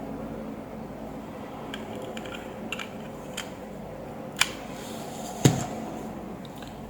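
A few sharp clicks and taps from small plastic and metal parts being handled, the loudest about five and a half seconds in, over a steady low hum.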